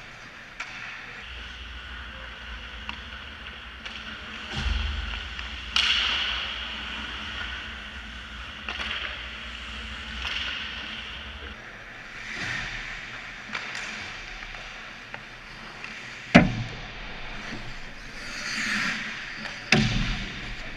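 Ice hockey play on an indoor rink: skates scraping and carving the ice in repeated hissing bursts, with sharp knocks of sticks and puck, the loudest about sixteen seconds in and another near the end.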